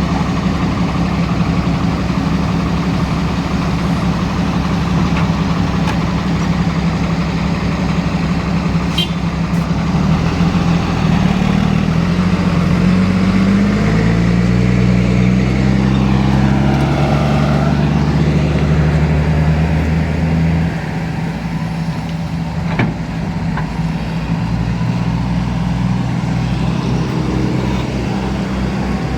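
Heavy diesel engine running steadily. In the middle its pitch rises and shifts in steps as it works under load, then it settles lower and slightly quieter about twenty seconds in.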